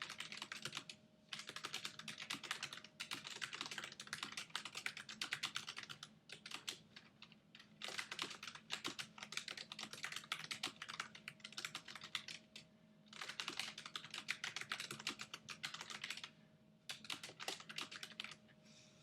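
Fast typing on a Logitech G815 low-profile mechanical keyboard with GL Tactile switches: rapid key clicks in long runs, broken by a few short pauses.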